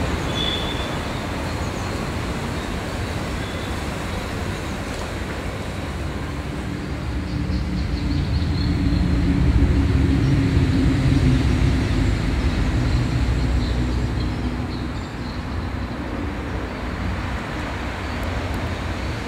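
Steady traffic rumble, swelling for several seconds around the middle as a heavy vehicle passes, then settling back.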